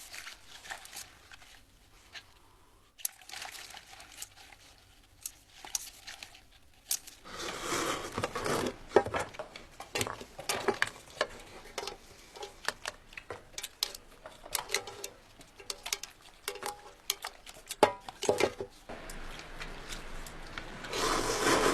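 Foley noodle-eating sound made by working soaked newspaper in a bowl: wet squelching, crinkling and smacking clicks that stand in for the sticky texture of noodles being eaten. It comes in patches, with busier, louder stretches about seven seconds in and again near the end.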